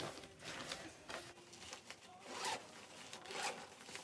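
A small zipper being pulled in several short rasping strokes, the loudest about two and a half seconds in.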